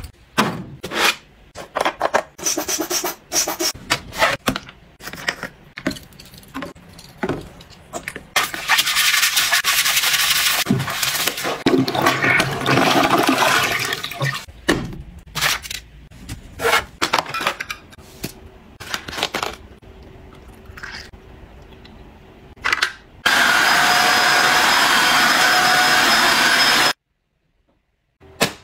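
Plastic bottles knocking and clicking as they are set down on a shelf, then a toilet flushing, a rush of water lasting about six seconds. More scattered clicks follow, then a loud, steady whirring noise that cuts off suddenly near the end.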